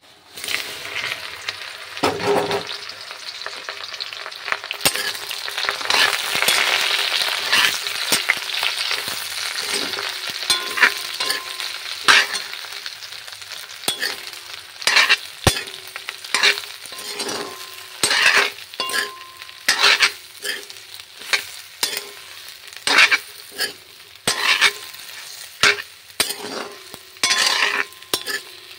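Chopped boroi (Indian jujube) hitting hot oil in an iron kadai and sizzling, loudest in the first few seconds. From about halfway on, a metal spatula stirs it, scraping and clinking against the pan about once a second over the fading sizzle.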